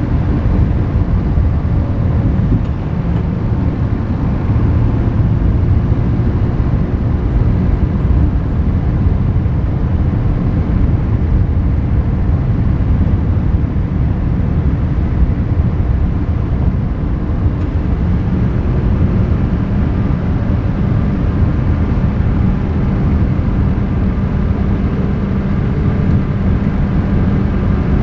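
Car driving along a paved road: a steady low rumble of tyres on asphalt and engine, picked up by a microphone outside the car.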